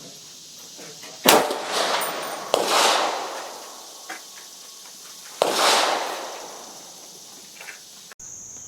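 Three rifle shots, the first two about a second and a quarter apart and the third about three seconds later, each ringing out with a long echoing tail.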